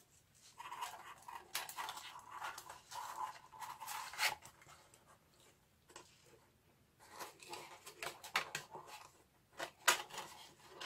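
Stiff corrugated cardboard pieces being handled and pushed together by hand: irregular rustling and scraping in two stretches, with a sharp tap about four seconds in and another near the end.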